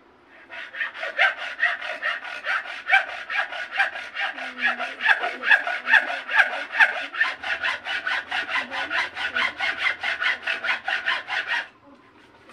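Hacksaw cutting across a bamboo tube in quick, even back-and-forth strokes, about four a second. The sawing starts about half a second in and stops suddenly near the end.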